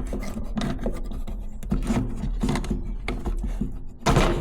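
Hand scraping or filing with a tool rubbing on a hard surface, in repeated irregular strokes with clicks, while a cut is worked deeper. A louder clatter comes near the end.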